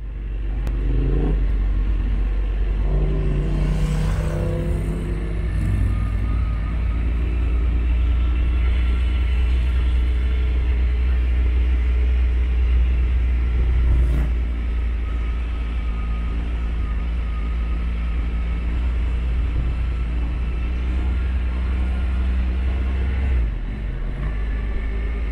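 Motorcycle engine running on the move, under heavy wind rumble on the microphone. The engine note stands out a few seconds in, and the rumble eases a little near the end.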